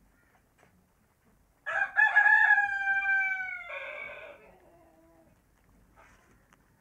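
A rooster crowing once: a single long call that starts about two seconds in, holds for a couple of seconds, then drops in pitch and trails off.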